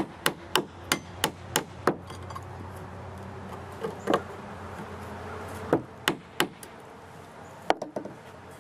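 Claw hammer rapidly striking nails in wooden deck-stair spindles to back them out. A quick run of about three blows a second stops about two seconds in, followed by a few scattered knocks.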